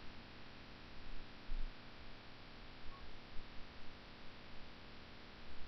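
Faint room tone: a steady hiss with a low mains hum and a few faint low bumps.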